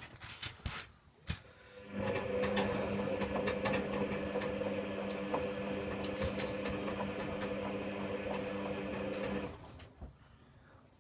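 A few clicks, then the Servis Quartz 6033 washing machine's motor starts about two seconds in and runs with a steady hum for about seven seconds before stopping. This is typical of the drum being turned during the wash.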